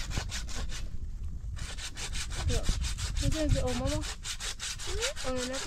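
Hand saw cutting through wood in quick, even back-and-forth strokes, with a brief pause about a second and a half in before the sawing resumes.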